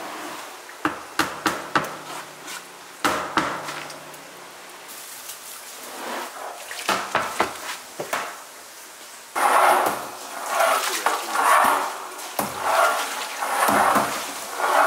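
Metal knocks and clanks against a stainless steel tank, then a metal rod stirring a tank of makgeolli rice mash, with repeated sloshing swishes from about nine seconds in.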